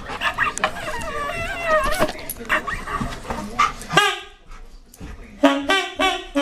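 A dog whining and yowling in wavering tones that bend up and down, with small clicks and knocks. A stronger whine comes about four seconds in. Near the end there is a run of short squeaks at an even pitch, about three a second.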